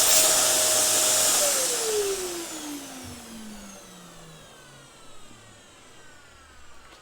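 Dyson DC07 Allergy bagless upright vacuum cleaner running at full speed with a steady whine. About a second and a half in it is switched off, and the motor spins down, its whine falling in pitch and fading over several seconds.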